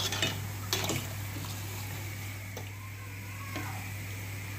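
Lentil fritters (dal bora) sizzling in a pot of deep-frying oil, a steady hiss over a low steady hum, with a couple of sharp knocks in the first second.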